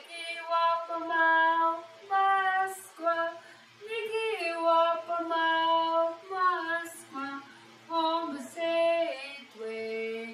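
A woman singing a song unaccompanied: held notes that step up and down in pitch, in short phrases with brief breaks between them.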